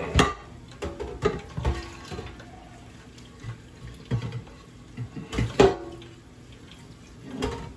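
Kitchen sink tap running while a pan is rinsed, with several sharp clanks of the pan against the sink, the loudest near the start and about five and a half seconds in.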